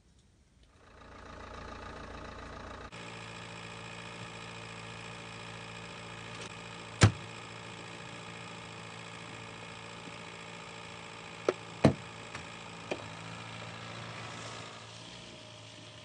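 An SUV's engine idling steadily, with a loud slam about seven seconds in and a few sharper knocks around twelve seconds. The engine sound eases slightly near the end as the vehicle pulls away.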